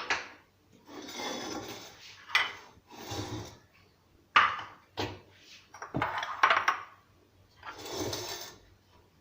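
Kitchen dishes, utensils and a cooking pot being handled: several sharp clinks with longer, rougher noisy stretches between them.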